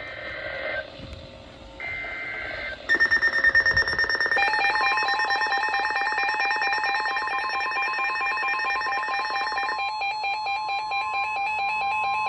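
NOAA Weather Radio alert tones: the last of the warbling SAME data bursts, then a steady warning alarm tone with a fast, rapidly pulsing electronic beep over it. This signals a new warning about to be read out. The pulsing beep stops near the ten-second mark and starts again near the end.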